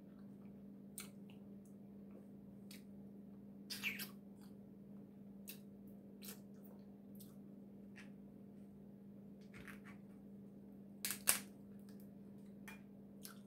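Eating boiled Dungeness crab by hand: scattered short clicks and crackles of crab shell being picked apart and mouth sounds, loudest about four seconds in and again near eleven seconds, over a steady low hum.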